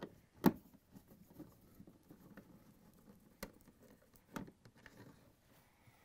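A 1/4-inch nut driver backing screws out of a refrigerator's rear cardboard access panel: faint scratching with a few sharp clicks and taps, the loudest about half a second in.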